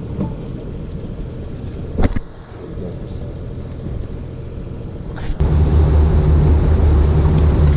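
Boat engine running steadily, with a short knock about two seconds in. About five seconds in a much louder low rumble sets in and holds.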